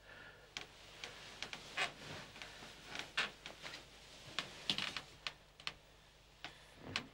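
Irregular light clicks and taps, a few a second and of uneven loudness, as small objects on a bedside table are picked up and handled, over a faint steady low hum.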